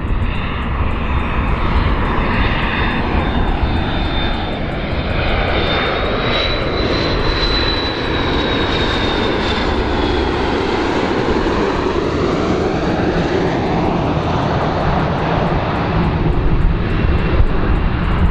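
McDonnell Douglas MD-82 jet airliner passing on landing approach: steady, loud jet engine noise from its two rear-mounted Pratt & Whitney JT8D turbofans, with a high whine that rises a little and then falls about halfway through as the plane goes by.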